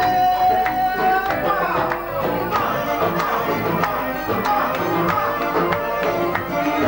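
Manele music: a quick, steady drum beat with a wavering melodic line over it.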